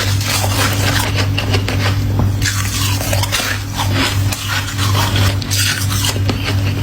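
Ice being bitten and crunched in the mouth: a dense run of crackling crunches over a steady low hum.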